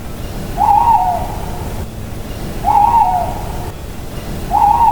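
Owl hooting: three short hoots about two seconds apart, over a steady low background rumble.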